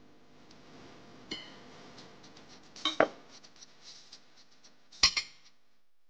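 Glass and a steel wire whisk clinking against a glass mixing bowl as flour and salt are added to beaten eggs. Sharp clinks come about three seconds in and again about five seconds in, with a lighter tap before them and small taps in between.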